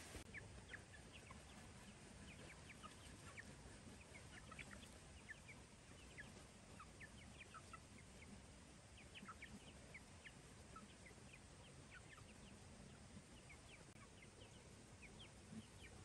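Young chickens peeping faintly: many short, high chirps scattered over a low steady hiss.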